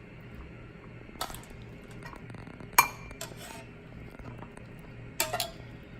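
Kitchen dishes and utensils clinking: a few sharp knocks, the loudest near the middle with a short ring, while broccoli is put into a bowl. Under them runs a steady low hum.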